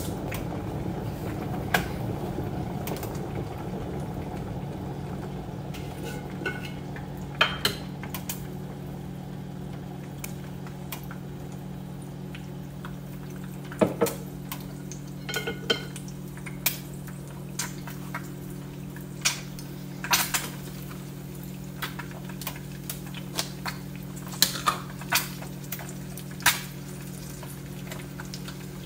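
Kitchen sounds at the stove while an egg fries: a glass jar and utensils clink and tap against the counter and pan now and then, over a steady low hum.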